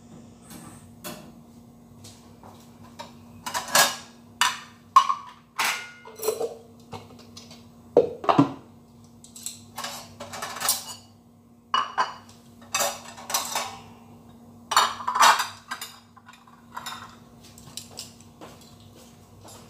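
Dishes and cutlery clinking and clattering as they are handled at a kitchen sink: irregular knocks and clinks, over a faint steady hum.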